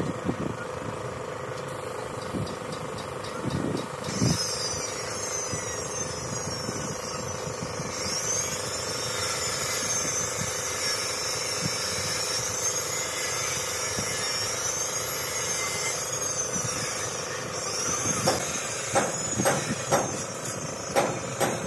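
Steady engine hum with a high, wavering whine through the middle and a run of sharp knocks in the last few seconds.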